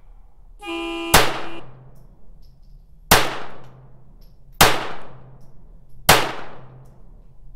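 A buzzing start tone sounds for about a second, and as it ends a CZ Kadet .22 LR pistol fires a rapid-fire string of five shots, each a sharp crack with a short ringing tail, about one and a half to two seconds apart.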